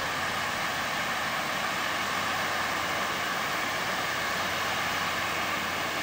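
Water fountain's jets and fine spray hissing steadily and evenly.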